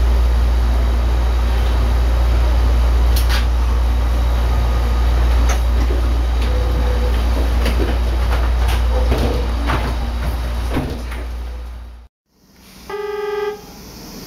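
Passenger doors of an Izukyu electric train sliding shut over the steady low hum of the stopped train, with several knocks and clicks. After a sudden cut to silence, a short pitched toot follows, typical of a train horn.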